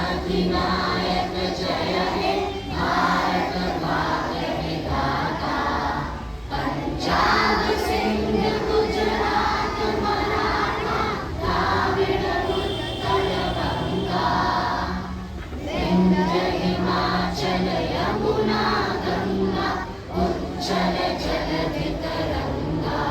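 A large group of schoolboys singing their national anthem together in chorus, in long held phrases with brief breaths between them.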